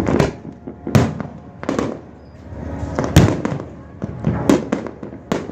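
Fireworks bursting in a quick series of sharp bangs with echoing tails, the loudest about one second and three seconds in.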